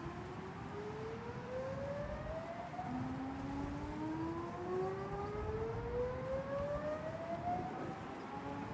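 Outdoor tornado warning siren winding up, its pitch rising slowly. A second rising tone starts about three seconds in and another near the end, over low wind rumble.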